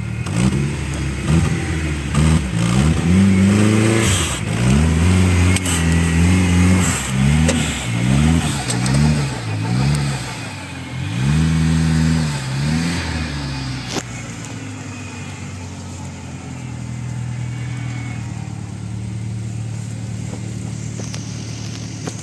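Off-road vehicle's engine revving up and down again and again, a rise and fall every second or so, for about thirteen seconds, then settling to a steadier, lower run. A single sharp knock comes about fourteen seconds in.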